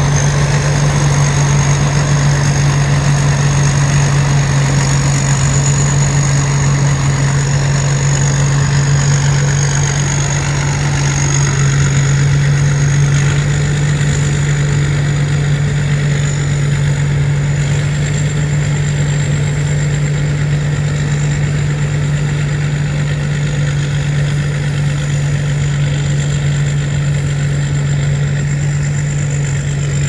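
Rice combine harvester running steadily: a deep, even engine hum with a thin high whine over it that creeps slightly higher.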